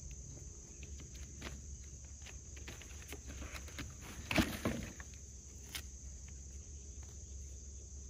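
Plastic drain pipe and fitting being handled and pushed together: scattered light knocks and scrapes, with one louder scrape about halfway through. A steady chorus of insects chirring runs underneath.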